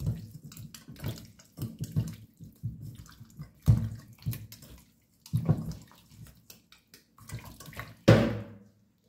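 Hands squishing raw chicken legs around in a wet marinade in a stainless steel pot, in irregular bursts, with one louder knock about eight seconds in.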